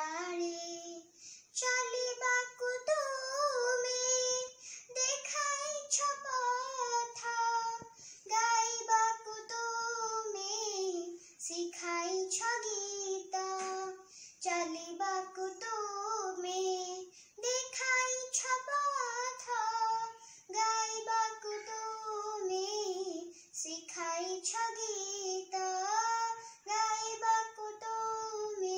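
A young girl singing a song solo and unaccompanied, in phrases of a few seconds with long held notes and short breaths between them.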